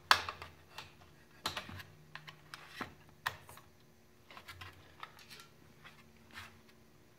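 Scattered light clicks and knocks of an air compressor's pressure switch and its flexible metal conduit being handled and screwed onto the tank fitting by hand. The sharpest knock comes right at the start, and the clicks grow sparser later, over a faint steady hum.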